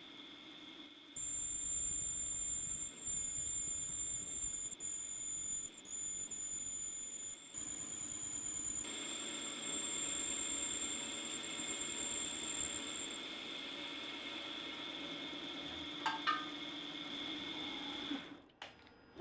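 Home-built CNC lathe running its automatic program, with a steady high-pitched whine from the spindle drive that changes level and pitch in a few steps. A few short clicks come near the end, then the machine winds down.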